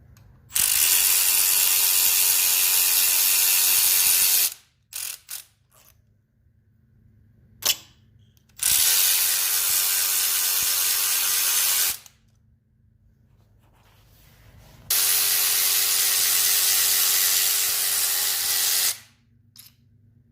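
Power ratchet running bolts out on the timing chain components of a Gen 1 Ford Coyote 5.0 V8. It runs in three steady bursts of about three to four seconds each, with a few short clicks in between.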